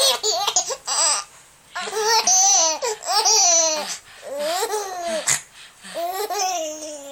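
Baby laughing hard in several long, high-pitched bouts with short breaks between them, set off by a mock sneeze.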